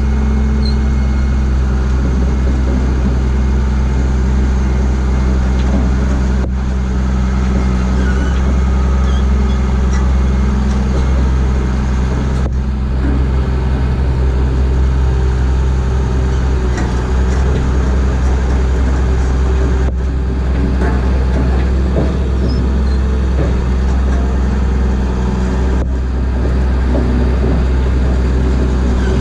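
Caterpillar CP-563 vibratory soil compactor's diesel engine running steadily, with a strong low drone.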